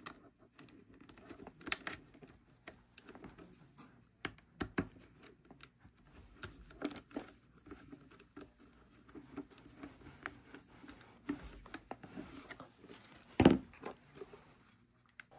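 Hands working wires and a ring terminal onto a battery's positive post: scattered small clicks, taps and rustles of wire and metal parts, with one sharper knock near the end.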